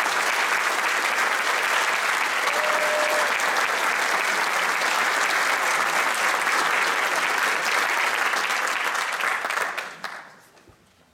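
Audience applauding steadily, dying away about ten seconds in.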